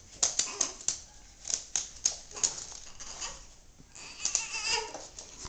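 Italian greyhound's claws clicking and skittering on a laminate floor as it jumps up excitedly, in quick irregular taps. About four seconds in there is a brief, high, wavering whine.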